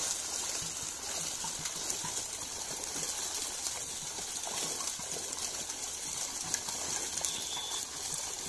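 Water rushing steadily, a constant hiss.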